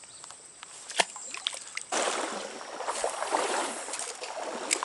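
Water splashing and sloshing, starting abruptly about two seconds in and lasting about three seconds, with a sharp click about a second in and another near the end.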